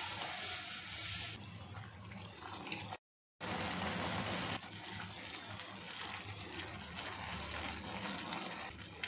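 Water boiling in a cooking pan as vermicelli is added and stirred in with a ladle. The sound drops out completely for a moment about three seconds in.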